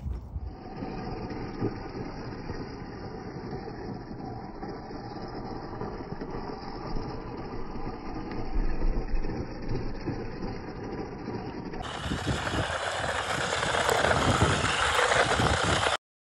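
Radio-controlled off-road truck driving on dirt: motor running and tyres churning. About twelve seconds in the sound turns louder and brighter, and it cuts off abruptly near the end.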